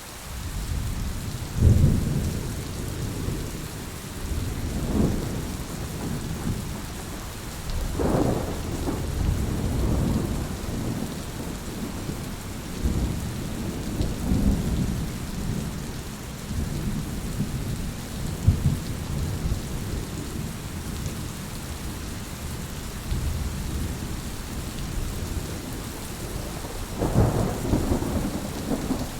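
Heavy rain falling steadily, with thunder rumbling through it. Sharper claps come about two seconds in, around eight seconds and near the end.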